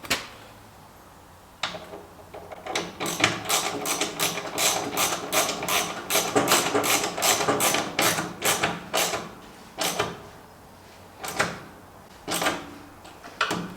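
A ratchet wrench clicking as bolts are tightened on a steel sawmill part: a couple of single clicks, then a fast run of about four to five clicks a second for about six seconds, then a few spaced clicks.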